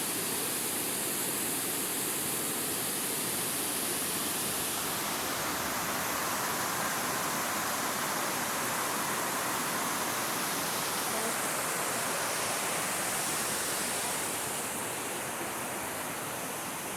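River water rushing steadily over a drop, like a small waterfall or weir. It eases slightly near the end.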